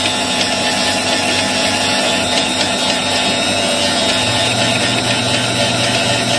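Bench end mill sharpener's motor running steadily, its grinding wheel cutting an end mill that is being turned by hand in the collet holder in the second grinding port. The grinding continues until the sound dies away, which marks the angle as fully ground.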